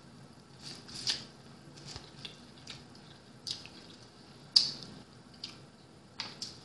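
Eating sounds: scattered sharp, wet smacks and clicks from biting and chewing corn on the cob, the loudest about two-thirds of the way through. Near the end, two quick crackling clicks come as a plastic water bottle is handled and opened.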